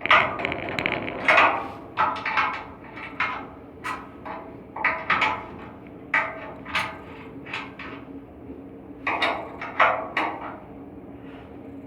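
Irregular metallic clanks and knocks of hand tools on an air handling unit's blower assembly during a V-belt change. There are about two knocks a second, some louder than others, over a faint steady hum.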